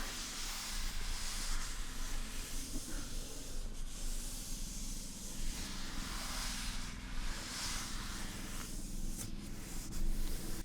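Hand rubbing slowly over a car surface: a soft scraping hiss that swells and fades in strokes a few seconds long.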